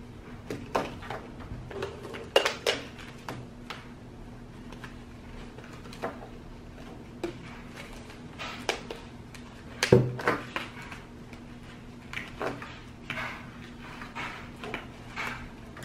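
Spoons clinking and scraping against bowls as a slime mix is stirred: irregular short clicks and knocks, the loudest about ten seconds in, over a steady low hum.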